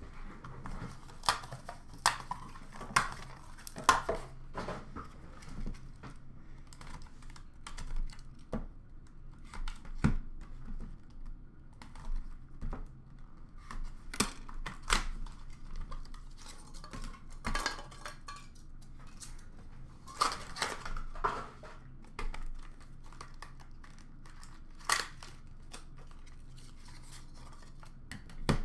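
Hands opening a hockey-card box and handling its cardboard packaging and plastic-cased cards on a glass counter: scattered sharp clicks, taps and short rustles, with a faint steady hum underneath.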